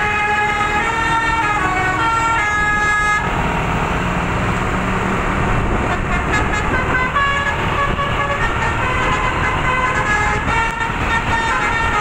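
A bus telolet horn, a multi-tone musical horn, playing a stepping melody of held notes that stops about three seconds in. After that there is dense road noise from engines and traffic, with shorter, fainter horn notes breaking through now and then.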